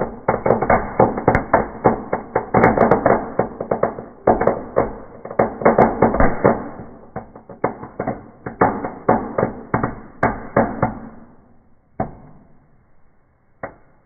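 Fireplace fireworks crackling in a wood fire, a dense rapid rattle of sharp pops and cracks. It thins out and dies away near the end, with two last single pops.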